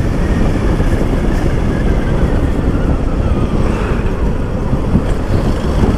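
Motorcycle being ridden along a road: engine and wind noise make a steady low rumble.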